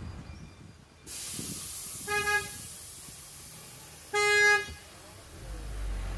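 A vehicle horn honks twice, about two seconds apart, the second toot louder and a little longer, over a steady hiss of street noise.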